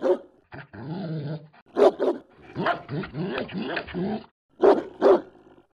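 A dog barking in quick pairs of sharp barks, three times, with longer stretches of growling between the barks.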